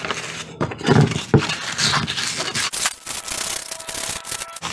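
Wooden chair spindle ends being hand-sanded with used 120-grit sandpaper to take off old glue: uneven rasping strokes of paper rubbing on wood.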